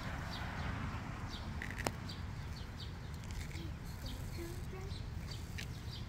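Small birds chirping repeatedly in short, high notes over a steady low rumble, with one sharp click just before two seconds in.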